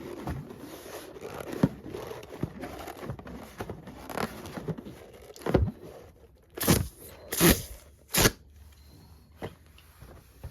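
Packaging of small latex balloons being handled and opened: crinkling, scraping and tearing with many small clicks, and several louder rustles about halfway through.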